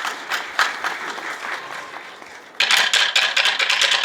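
Audience applause with rapid clapping that thins out, then swells suddenly and loudly again about two and a half seconds in.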